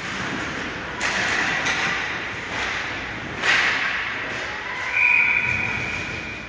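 Ice hockey game in a rink: a steady scrape and hiss of skates on the ice, with sharp thuds about a second in and again, louder, about three and a half seconds in. About five seconds in comes a steady, high whistle blast lasting about a second and a half.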